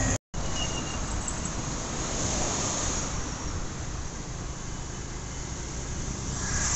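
Wind rushing over a phone's microphone: a steady even noise with no clear event in it, swelling slightly near the end.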